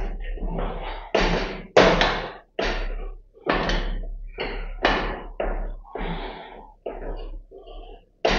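Repeated metallic clanks and knocks from a home multi-gym's leg-extension arm and its loose iron weight plates as the legs are raised and lowered, roughly two hits a second.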